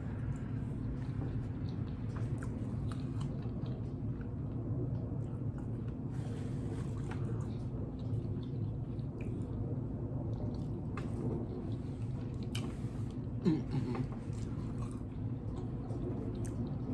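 A man chewing a mouthful of food, with scattered small mouth clicks, over a steady low hum.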